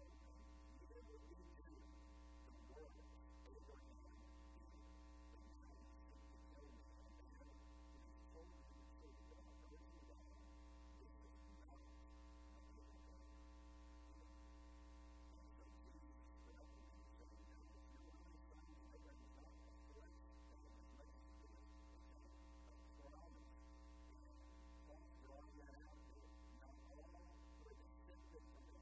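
Near silence: a steady electrical mains hum with several faint steady tones above it.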